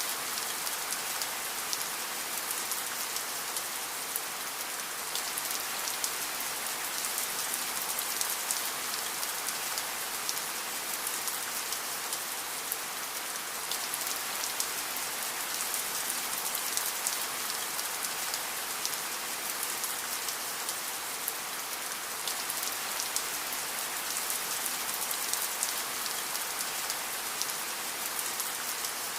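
Steady rain falling on a surface, a dense even hiss of many small drop ticks.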